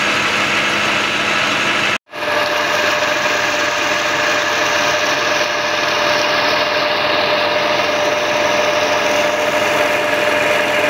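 A Fiat 640 tractor's diesel engine running steadily as it drives a tubewell pump, mixed with water gushing from the discharge pipe into the pool. The sound drops out for an instant about two seconds in, then carries on unchanged.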